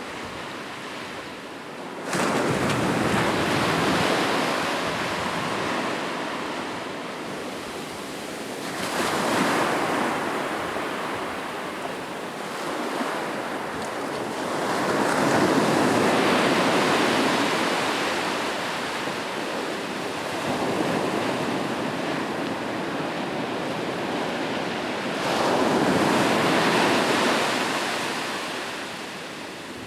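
Ocean waves breaking on a beach: a steady rush of surf that swells and ebbs about four times, the first wave crashing in suddenly about two seconds in.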